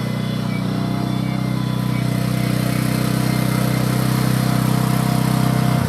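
Engine of a BCS 749E walk-behind tractor running steadily under power, driving a 38-inch finish mower with bagger, getting slightly louder toward the end.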